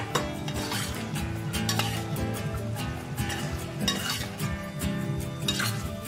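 A spatula scraping and clinking against a wok, irregular strokes, while shrimp, squid and vegetables are stir-fried with a light sizzle. Background music plays underneath.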